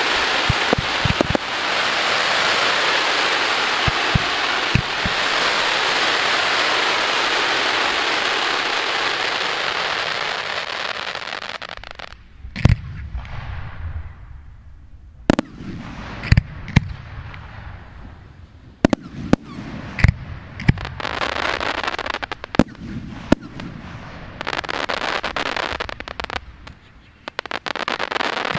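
Fireworks display: for about the first twelve seconds a dense, steady crackling hiss from many crackling stars burning at once, which fades out. Then comes a string of about a dozen separate sharp bangs from aerial shell bursts, with shorter spells of crackling between them.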